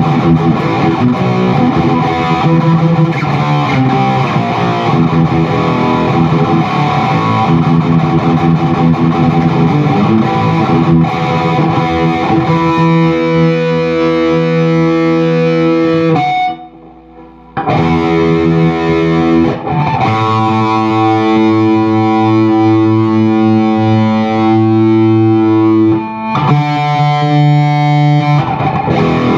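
Electric guitar played through a distorted Zoom G1X Four multi-effects preset and a Peavey 6505+ combo amp: fast picked riffing, then sustained ringing chords, with a brief stop about halfway through.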